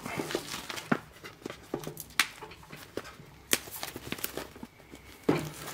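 Plastic shrink wrap crinkling and crackling as it is pulled off a cardboard box set, with scattered sharp taps of the box being handled.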